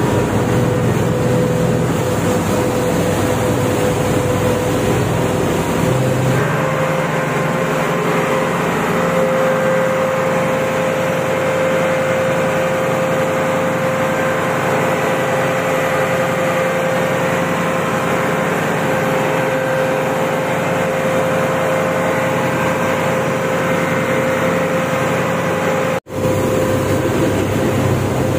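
River ferry's diesel engine running steadily under way: a loud, even drone with a steady humming tone. The sound cuts out for an instant near the end.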